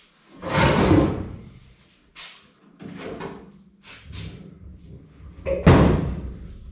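A door being worked and banged shut, with two loud bangs about half a second and five and a half seconds in, and lighter knocks and clatter between.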